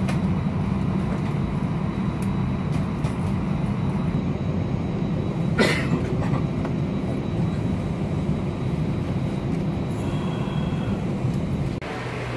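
Airbus A320 passenger-cabin noise while taxiing after landing: a steady low rumble of the idling jet engines and the rolling landing gear, with one sharp knock about halfway through. Near the end the sound drops suddenly to a quieter, steady hum.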